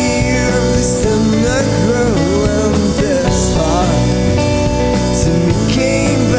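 Rock song playing: a full band with a steady low end, and a lead melody that slides and bends in pitch over it.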